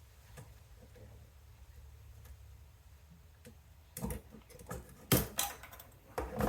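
Faint ticks of handling, then a few sharp clicks and snaps from about four seconds in, as twisted wire is cut to length; the loudest snap comes just after five seconds.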